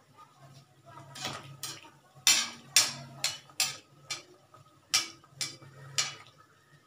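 Metal slotted spoon clinking against the side of a steel kadhai of hot oil in which a tikki is deep-frying: about nine sharp, irregular clinks, the loudest a little over two seconds in.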